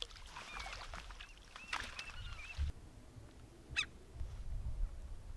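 Wild birds calling: a run of short, arching chirps over the first half, then one more sharp call near the end.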